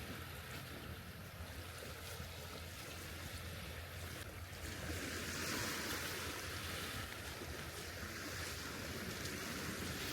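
Wind rushing through forest trees, swelling in a gust about five seconds in and easing off.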